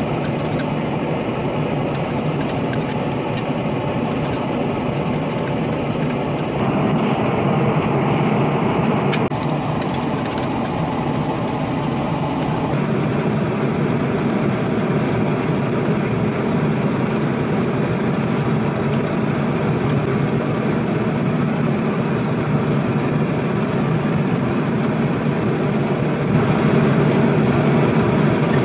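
Propane gas forge burner running with a steady roar, its level stepping up and down abruptly a few times.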